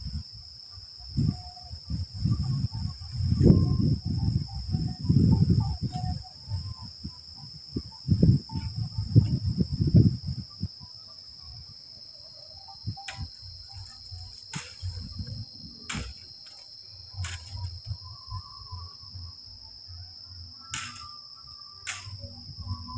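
Wind buffeting the microphone in strong gusts through the first ten seconds or so, over a steady high drone of insects. In the calmer second half there are a handful of sharp clicks.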